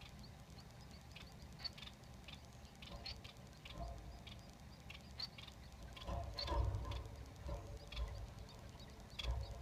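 Society finch nestlings begging for food with a run of short, high peeping chirps, several a second. Louder low bumps and rustling in the nest come partway through and again near the end.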